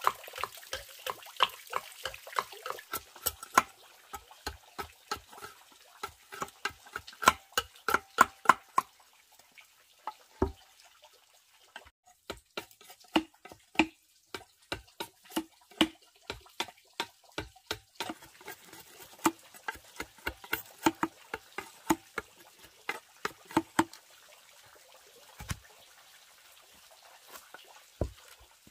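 Machete chopping into a green bamboo tube: a run of sharp knocks, about two to three a second, with short pauses between bouts.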